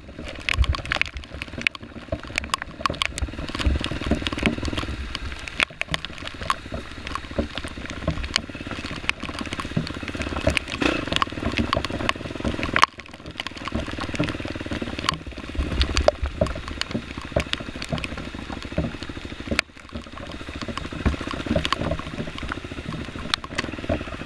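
Dirt bike engine running on a rough, wet forest trail, its revs rising and falling, with many sharp clicks and knocks from the bike over the terrain. The sound drops away briefly twice, about halfway and about three-quarters of the way through.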